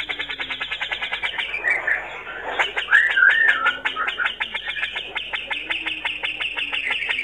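Male grey-cheeked bulbul (cucak jenggot) singing a fast, chattering rattle of about ten short notes a second. There is a brief break about two seconds in and a short wavering whistle about three seconds in.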